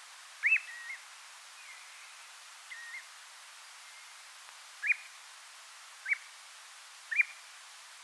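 Ringed plover calling: short, clear, rising whistles given singly every second or so, four loud ones and a couple of softer, flatter notes, over a steady hiss of background noise.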